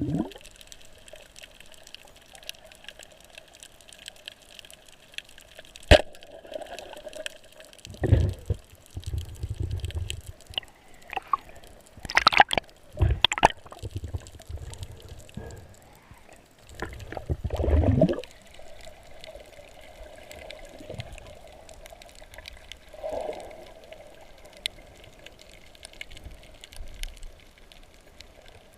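Water sloshing and bubbling, with several louder gurgling surges about eight, twelve to thirteen and seventeen seconds in.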